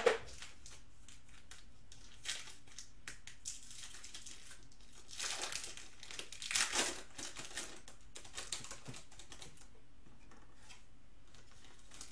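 Foil trading-card pack crinkling in the hands as it is worked open, in scattered crackles with a louder, busier stretch about halfway through.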